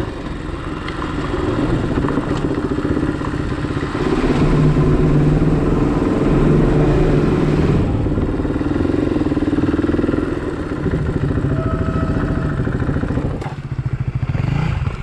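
Motorcycle engines running, their pitch rising and falling with the throttle, settling into a steady, evenly pulsing idle near the end.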